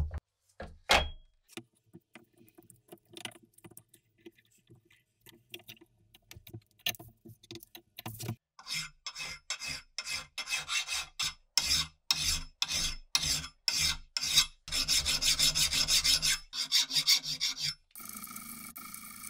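A loud knock and light handling as a wooden block and the hatchet head are set up in a bench vise. Then a hand file rasps across the steel bit of a Van Camp hewing hatchet in regular strokes, about two a second, running into one continuous stretch of filing for a couple of seconds.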